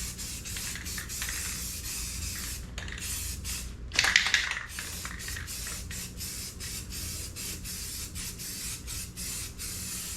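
Aerosol rattle can of primer sealer spraying onto a plastic bumper: a steady hiss, with a louder burst about four seconds in.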